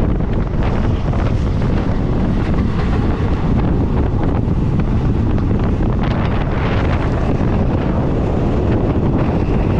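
Wind buffeting the microphone over the steady rumble of a moving passenger train.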